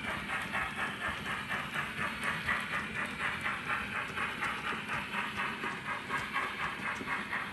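Steam-exhaust chuffs from the ESU LokSound V4 sound decoder in a Bachmann OO-gauge GWR 45xx Prairie tank model, a quick, even beat as the locomotive runs steadily.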